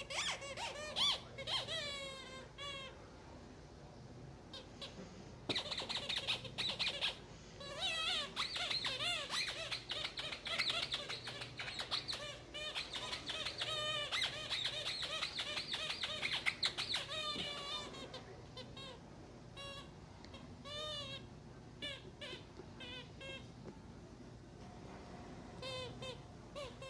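Squeaky rubber ball toy squeaking over and over as a puppy bites and chews it, in quick bursts of high, wavering squeaks that are densest in the middle and thin out near the end.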